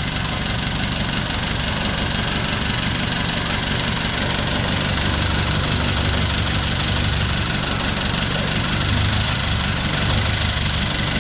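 Owner-type jeep engine idling steadily after its hard-starting fault was fixed. The low rumble gets heavier about five seconds in and again near nine seconds.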